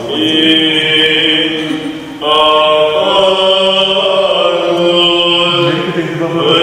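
Orthodox church chant: voices holding long, drawn-out notes, the pitch shifting a few times and swelling louder about two seconds in.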